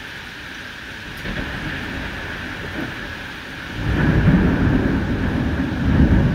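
Heavy rain falling steadily, with a low rumble of thunder coming in about four seconds in and swelling twice near the end.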